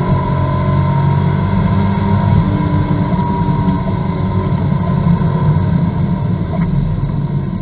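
Corvette GT2 race car's V8 engine running at high revs under load along a straight, heard from inside the cockpit.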